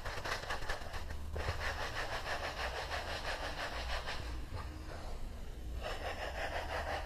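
Palms rolling a strand of semolina pasta dough back and forth on a floured wooden board, a soft dry rubbing swish in spells with brief pauses.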